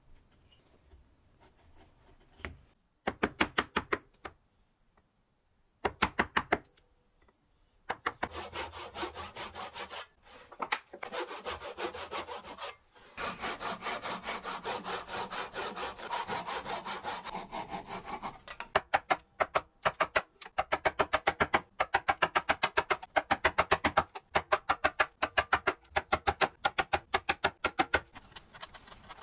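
Hand-tool woodworking on softwood. First faint scraping, then a hand saw cutting with steady rhythmic strokes through the middle. From about two-thirds of the way through come quick, sharp, louder strokes of a chisel clearing the waste.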